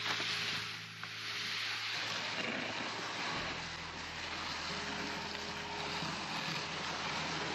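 Wind on the microphone: a steady rushing noise, with a low rumble setting in about halfway through.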